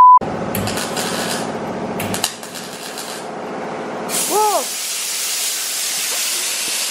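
A short steady beep, then a welding torch crackling and hissing as it welds the rusted sheet steel of a car's rear quarter panel. A brief tone rises and falls about four and a half seconds in.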